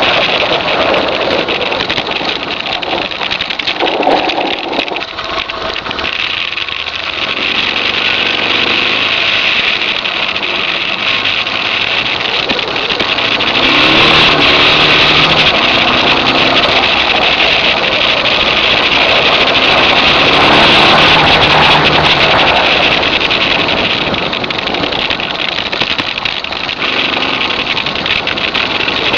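Suzuki DR650's single-cylinder four-stroke engine running while riding, its pitch rising and falling with the throttle. It is loudest about halfway through and again about two-thirds through, under a steady rushing hiss.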